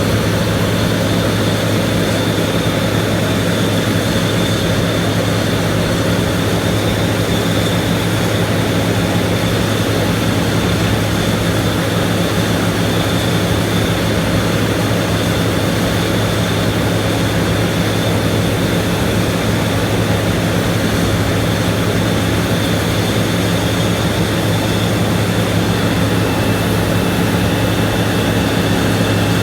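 Large diesel farm machine running steadily: a constant engine drone with a faint high whine on top.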